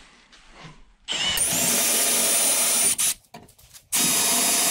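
Cordless drill boring a 1/4-inch bit through the pilot holes in a 1/8-inch steel angle-iron bracket. It runs in two bursts of about two seconds each, with a steady high motor whine.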